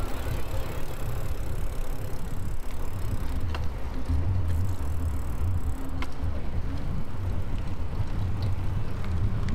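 Wind rumbling on the microphone of a moving bicycle, over tyre and road noise. Two faint clicks come about three and a half and six seconds in.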